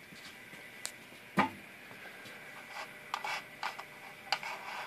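A few light, sharp clicks and taps, the loudest about one and a half seconds in and a quick cluster near the end, over a faint steady high-pitched hum.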